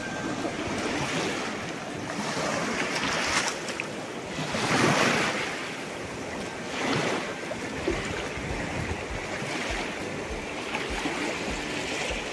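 A rain-swollen, fast-flowing river rushing past, with small waves washing onto its stony bank. Wind on the microphone swells louder a few times around the middle and adds low rumbles near the end.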